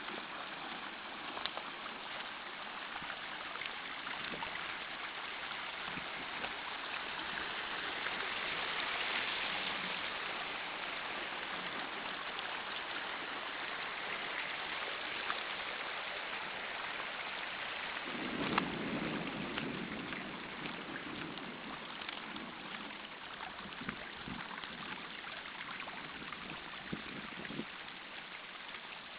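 Muddy storm runoff from a downpour rushing over stones and gravel, a steady rushing of water. About 18 seconds in there is a brief lower rumble over it.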